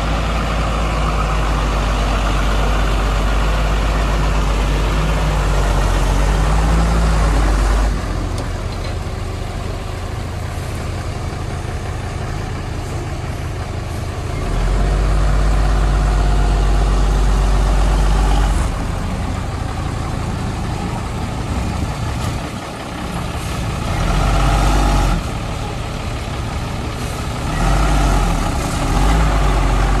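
Diesel engine of a loaded tipper truck running under load and pulling over dirt. It rises and falls back several times as the driver opens and eases the throttle.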